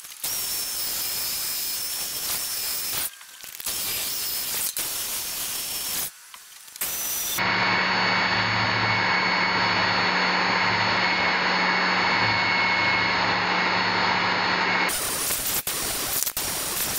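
Handheld belt sander running and sanding hard, cured epoxy fillets on a plywood shell. It comes in several stretches with brief breaks; in the longest, middle stretch the motor runs with a steady hum and whine.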